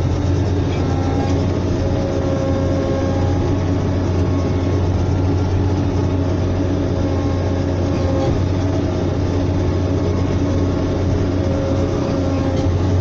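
Caterpillar 120K motor grader's diesel engine running steadily with a deep drone, heard from inside the operator's cab while the machine grades.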